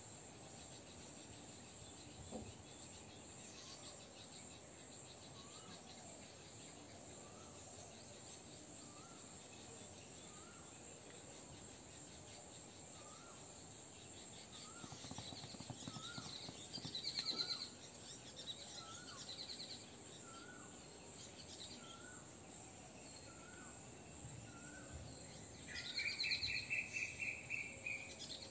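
Outdoor ambience of insects and birds: a steady high insect drone, a bird repeating a short rising chirp about once every second and a bit, and louder bird chirps and a trill about halfway through and again near the end.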